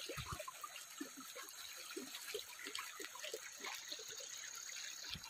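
Shallow river water trickling and splashing faintly, with small irregular splashes as stones are set in the water around a submerged crab trap. There is a dull low thump just after the start and another near the end.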